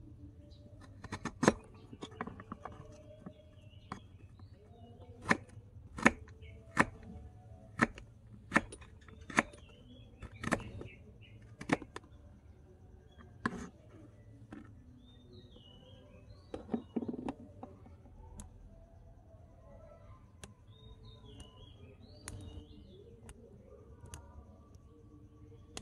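Small kitchen knife slicing a vegetable on a miniature wooden chopping board: a series of sharp knocks of the blade on the wood, about one a second, thinning out after the first half. Birds chirp faintly in the background.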